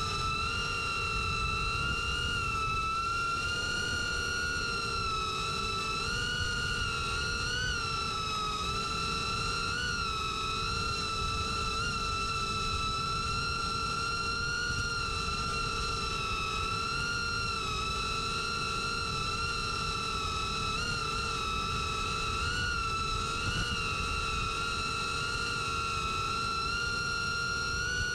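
Electric motors of an FPV drone (1607-size, 2825KV, on a 6S battery) running as a high, steady whine that wavers slightly in pitch as the throttle changes. A low rushing noise runs underneath.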